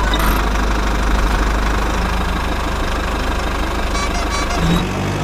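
Engine running steadily at idle, a dense low rumble with a knocking edge, as from an RC construction vehicle. A steady hum joins near the end.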